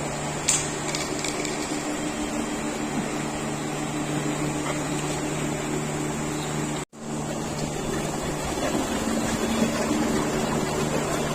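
Steady low machine hum with a few held tones, a sharp click about half a second in, and a brief dropout a little past halfway.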